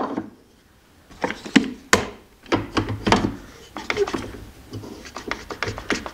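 Wooden knocks as a stop block is set against a miter saw fence, one right at the start and a louder one about two seconds in. From about two and a half seconds in, an Irwin one-handed bar clamp is ratcheted tight with a run of quick clicks.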